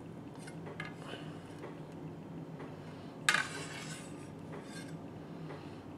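A chef's knife blade tapping and scraping on a wooden cutting board as cut fish and onion slices are pushed together, with light scattered clicks and one louder scrape about three seconds in.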